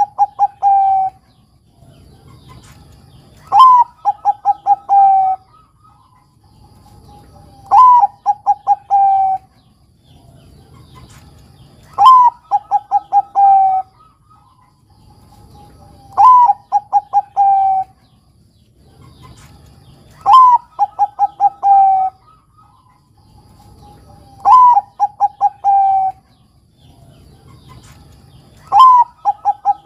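Zebra dove of the Bangkok perkutut type singing its cooing song. The phrase repeats about every four seconds, eight times here. Each phrase is a loud opening note that rises then drops, then a quick run of about five short clipped notes, ending on a longer note that slides down.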